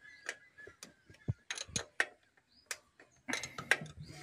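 Irregular metallic clicks and clacks from the hand priming pump on a tractor's diesel fuel system being worked, with a quicker run of strokes near the end: bleeding air out of the fuel filters after a filter change, without which the engine will not start.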